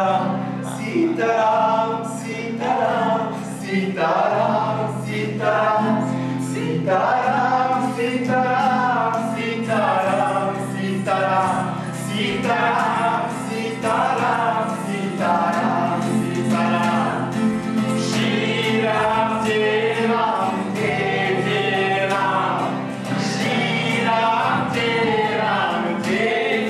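A group of voices singing a slow chant-like melody together, one long syllable about every second, over a steady low drone.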